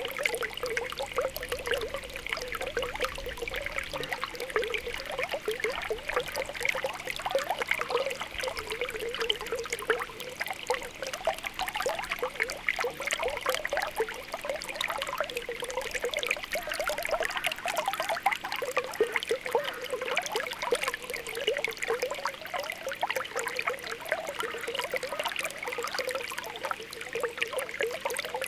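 Spring water welling up from the ground, a steady run of small popping and bubbling sounds over a trickle.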